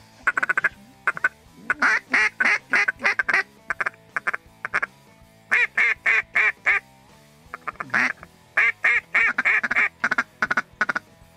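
Hand-blown duck call sounding strings of quick quacks, several runs of a few to about a dozen notes with short pauses between them, calling to circling ducks.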